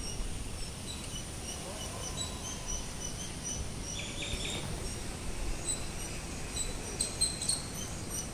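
Birds chirping outdoors, short high calls repeating throughout, with a quicker flurry of calls about four seconds in and again near the end, over a low steady rumble.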